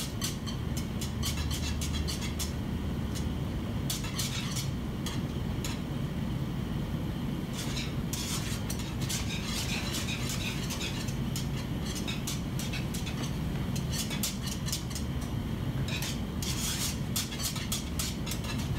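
A wire whisk clicking and scraping rapidly against the side of a saucepan, whisking butter into hot cream-pie filling until it melts, over a steady low hum.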